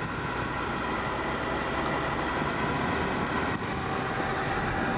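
A car driving, heard from inside the cabin: steady engine and road noise.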